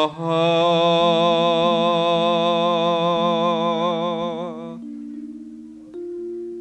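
A singer holds one long note with vibrato over steady held accompaniment chords in a Javanese langgam song. The voice stops a little under five seconds in, leaving the held chords, which change near the end.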